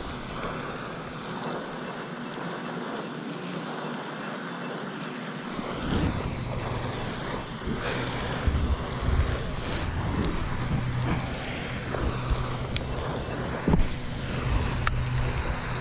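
Wind buffeting the microphone over a steady outdoor hiss, the low rumble setting in about five seconds in. A few sharp clicks near the end.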